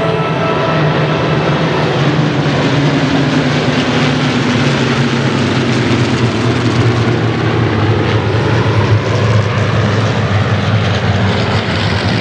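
Massed piston-engined warbirds of the Balbo formation flying past together: a loud, steady drone of many propeller engines, their pitch sliding downward in the first half as the formation passes.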